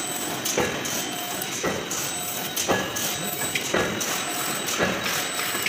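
Heavy rapier wire mesh loom running, clacking about once a second with each weaving cycle, over a faint steady high whine.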